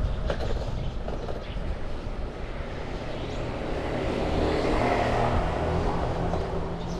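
Traffic noise heard from a moving bicycle: a steady mix of rushing and rumbling with low engine-like tones, swelling about four to six seconds in, as a motor vehicle passes, then easing.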